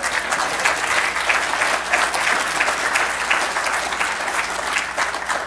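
Congregation applauding, a dense patter of many hands clapping at a steady level.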